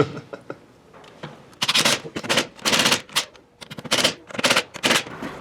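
Rapid rattling bursts from a tool running down the bolts on a Jeep NP231J transfer case being reassembled: several short runs of quick clicks with brief pauses between them.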